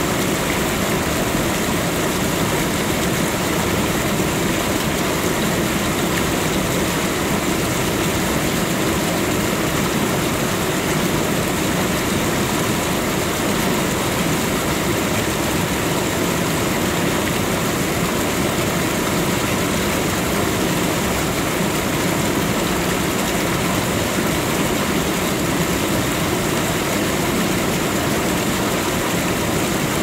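Steady, unbroken rush of powerful water, an even hiss and rumble with no breaks or changes.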